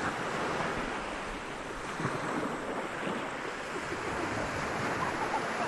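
Sea waves breaking and washing up on a beach: a steady rush of surf that swells a little now and then.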